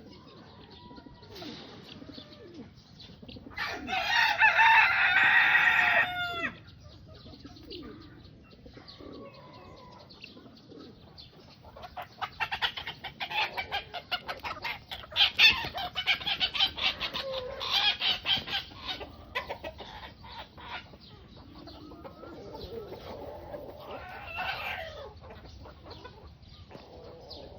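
A rooster crows once, a loud call of about two and a half seconds. Several seconds later chickens cluck in fast, rapid runs, with another shorter call near the end.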